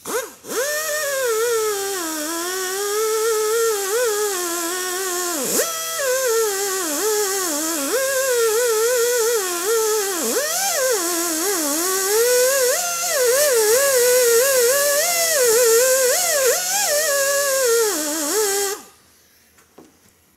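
Small die grinder with a Scotch-Brite surface-conditioning pad running as a high whine, its pitch wavering and dipping sharply a few times as the pad is pressed against the engine block, cleaning caked-on old gasket residue off the oil filter housing mounting face of a Mercedes OM617 diesel. It stops near the end.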